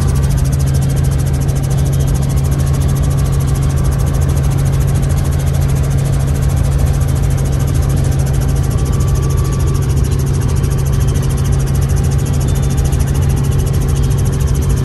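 Small helicopter's engine and rotor heard from inside the cabin: a loud, steady drone with a strong low hum as it lifts off and climbs.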